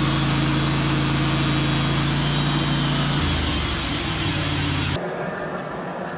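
Sawmill engine running steadily under a loud hissing cut. About three seconds in the engine note changes, and near the end the sound changes abruptly to a quieter, duller running sound.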